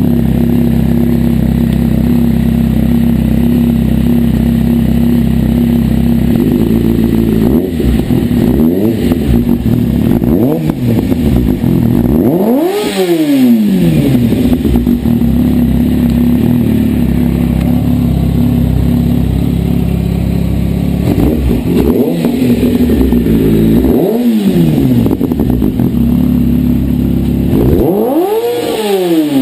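2011 Kawasaki ZX6R's inline-four engine through a Jardine slip-on exhaust, idling deep and steady, then blipped on the throttle several times, each rev rising and falling quickly, the biggest about a third of the way in and near the end.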